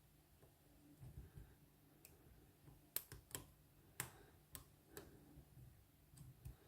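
Faint metallic clicks from a hook pick and tension tool working the pins inside a Lockwood 289 oval padlock during picking: about six sharp clicks roughly half a second apart in the middle, over faint handling noise.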